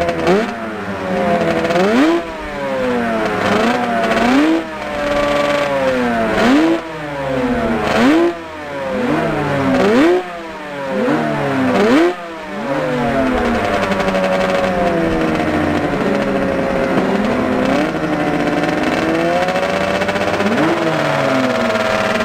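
Motorcycle engine revving in repeated cycles, its pitch sweeping up and dropping off sharply about every two seconds, as in throttle blips for rev matching during gear changes. After about halfway the engine holds a steadier note with a slight rise and fall in pitch, and one more quick rev near the end.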